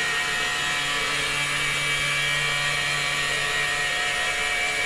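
Milwaukee battery-powered power broom running steadily with a constant high whine, its rotating sweeper drum brushing artificial turf to stand the fibres upright.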